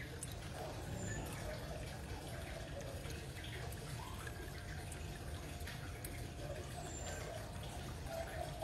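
Pond water dripping and lightly splashing as a hand lifts a goldfish and turns it at the surface, over a steady low rumble.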